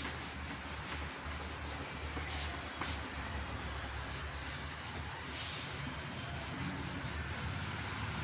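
A whiteboard being wiped with a duster: soft, continuous rubbing with a few louder swipes, over a steady low hum.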